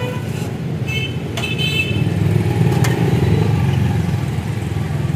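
Steady low rumble of road traffic and running engines, with a brief higher-pitched tone about a second in and a sharp click midway.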